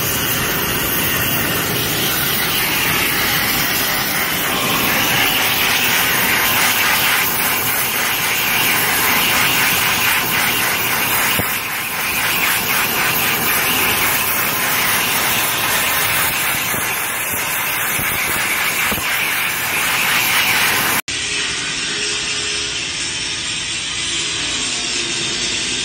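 Oxy-fuel gas torch hissing steadily as it works on steel beam plate. About 21 seconds in, the sound changes to an angle grinder running against steel.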